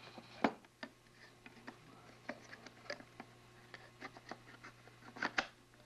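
Small metal ashtray being handled and fitted back onto a Bakelite cigarette dispenser: scattered light clicks and scrapes of metal against Bakelite, with louder knocks about half a second in and again near the end.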